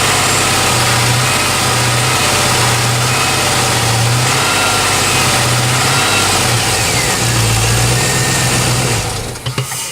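Pontiac G8 engine idling steadily with a knock. The engine sound stops near the end.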